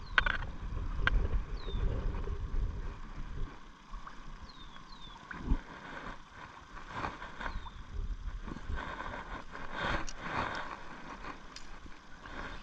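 Outdoor ambience with wind rumbling on the microphone for the first few seconds, then quieter, with a few short falling chirps, scattered light knocks and a burst of rustling about ten seconds in.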